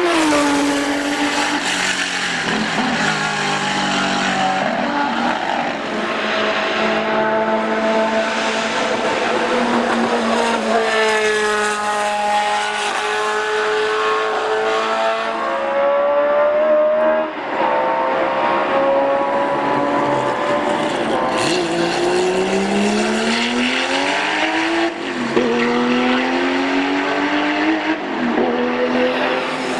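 Historic 1970s endurance racing cars' engines running hard at racing speed on track, one engine's pitch falling as it passes near the start, then engines revving up in steps with sudden drops at upshifts, twice in the last few seconds.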